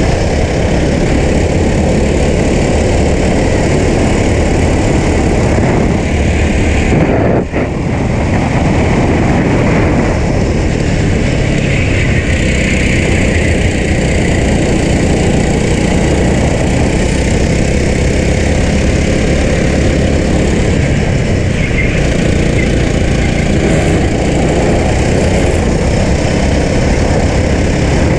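Racing go-kart engine running hard through the laps, mixed with rushing noise at speed, steady and loud, with a brief drop in sound about seven seconds in.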